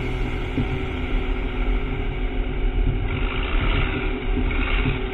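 Tractor engine running as the tractors drive along a rough forest track: a low, pulsing engine drone, joined about three seconds in by a rougher hiss.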